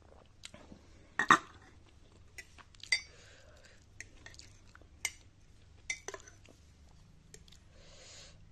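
Tableware clinking: several sharp, separate clinks of crockery and cutlery, the loudest a little over a second in.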